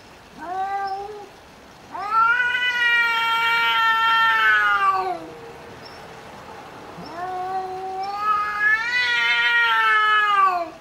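Domestic cats yowling at each other in a fight standoff: the aggressive warning call of a cat squaring off. A short call comes first, then two long drawn-out yowls of about three seconds each, both dropping in pitch as they trail off.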